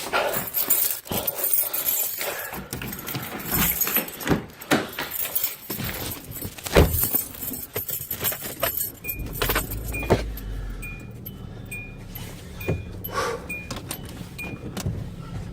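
Car keys jangling with clicking and rattling handling, then about nine seconds in a car engine starts running low and steady while a chime beeps repeatedly, about one and a half beeps a second.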